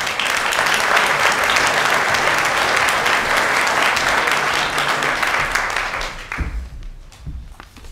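Audience applauding, dying away about six seconds in, followed by a few low thumps.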